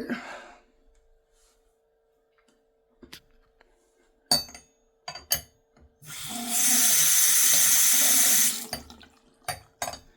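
A newly installed faucet being tested: a few sharp clicks, then water running from the tap for about two and a half seconds until it is cut off, followed by two more clicks.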